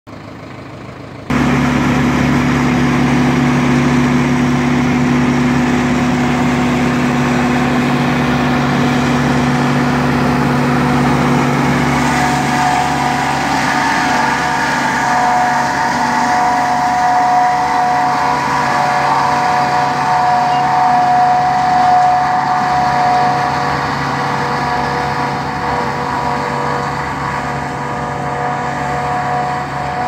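JF 1000 tractor-driven forage harvester cutting and chopping standing oats for silage, with the tractor engine running steadily under load. It comes in abruptly just over a second in. About halfway through, a steady high whine from the cutter and blower rises above the engine.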